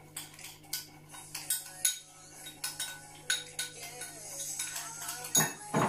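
Kitchen utensils and crockery clinking and knocking at a counter: a scatter of sharp clicks, some with a short ringing, and a louder knock near the end.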